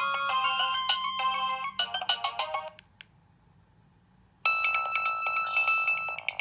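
Preloaded ringtones on a Nokia 2115i phone. A melody of short, quick notes stops about two and a half seconds in and is followed by a click. After about a second and a half of near quiet, a different tune of longer held notes starts.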